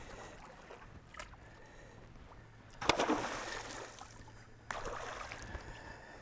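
A hooked muskie thrashing at the water's surface beside a boat, with two splashes about three seconds in and just before five seconds in, and a sharp click about a second in.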